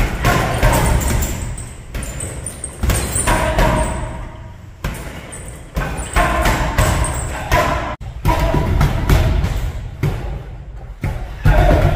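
Boxing-glove punches thudding into a heavy punching bag in rapid combinations, each cluster of blows followed by a short pause.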